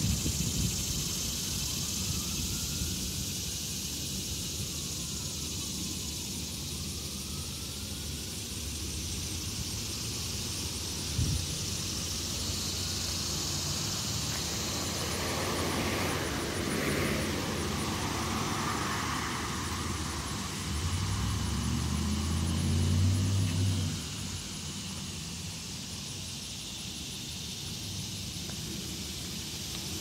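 Annual cicadas buzzing steadily in a continuous high chorus. A car passes along the street in the middle, loudest around 22 to 24 seconds in, then fades quickly.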